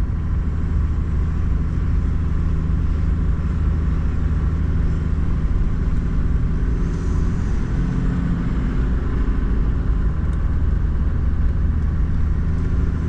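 Toyota Land Cruiser troop carrier on the move: steady engine hum and road rumble that holds an even level throughout.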